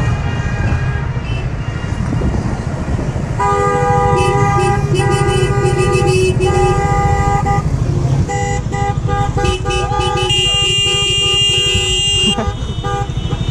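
Several car horns honking in long held, overlapping blasts, the celebratory honking of a car parade, over a steady low rumble of engine and traffic noise. The horns start a few seconds in, and a higher-pitched horn joins near the end before they stop.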